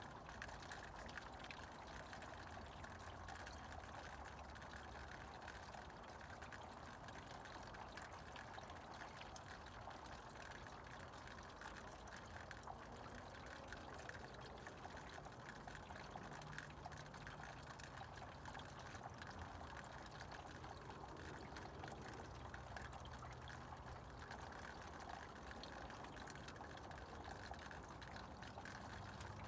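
Meltwater from thawing snow trickling and dripping, a faint steady patter of many small drips.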